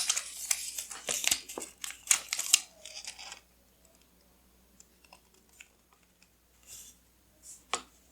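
Paper and washi tape being handled at a desk: dense crinkling and tearing-like rustling for about the first three seconds, then only a few soft taps and rustles.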